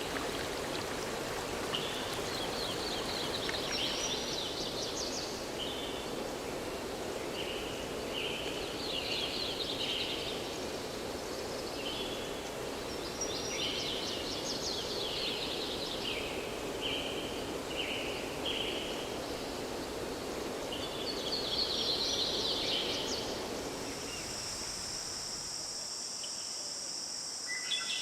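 A flowing stream with songbirds calling in short repeated phrases. About four-fifths of the way through, the water fades out and a steady high chirring of crickets takes over.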